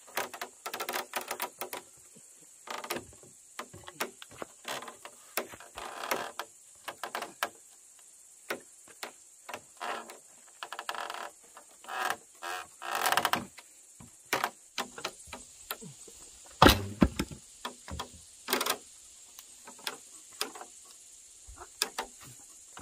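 Wooden boards and timbers being handled: irregular knocks and clatters of wood on wood, with one loud, heavy thump about three-quarters of the way through.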